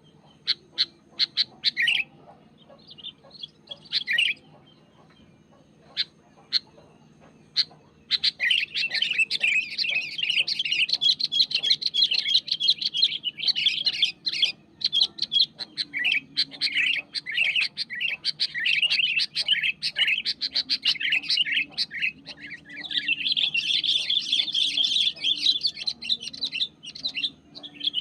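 Sooty-headed bulbul (kutilang) calling: a few short, separate chirps at first, then from about eight seconds in a fast, continuous chattering song that carries on to the end.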